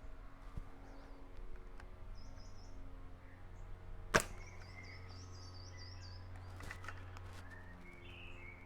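A single shot from an SRS airsoft rifle with a high-powered HPA engine shooting about 3.2 joules, fired through a chronograph: one short, sharp crack about four seconds in.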